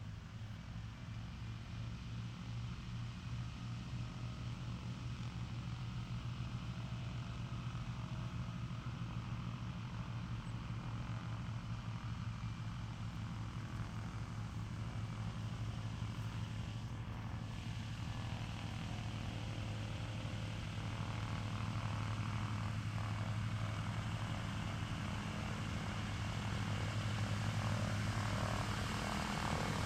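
Douglas C-47 Skytrain's two Pratt & Whitney R-1830 radial engines running at low taxi power with propellers turning: a steady low drone that grows gradually louder as the aircraft taxis closer.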